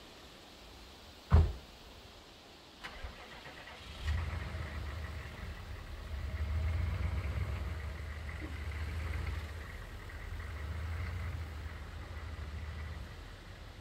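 A single loud thump about a second in, then a pickup truck's engine starting about four seconds in and running with a steady low rumble that swells and eases as the truck pulls away.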